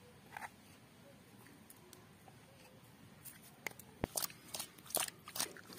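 Faint handling sounds of seasoning fish: irregular rustling and crackling strokes from the second half on, with one sharp knock about four seconds in, as salt is added to turmeric-coated fish in a steel bowl.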